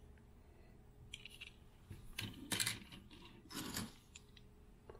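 Die-cast metal Matchbox toy cars clinking and clattering as they are handled, put down and picked up on a wooden table: a few short clicks and clatters, the loudest a little over two seconds in.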